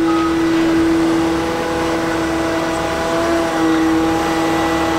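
Heavy equipment engine running steadily, with a high steady whine over an uneven low throb. The pitch shifts slightly about three and a half seconds in.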